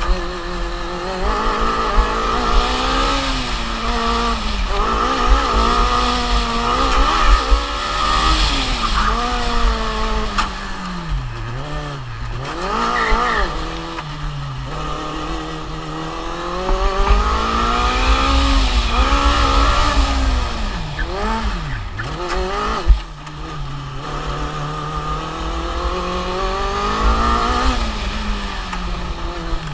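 Onboard sound of a Formula Student race car's engine at speed, its note climbing and falling again and again as it accelerates and lifts through a string of corners. It drops to low revs twice, and there is one sharp bang about two-thirds of the way through.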